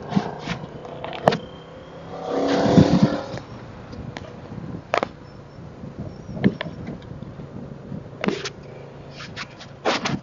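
Yamaha V-Max's V4 engine running under way, heard through a helmet-mounted camera with wind on the microphone. There is a louder swell of engine and wind noise about two to three seconds in, and scattered sharp knocks and wind thumps on the microphone throughout.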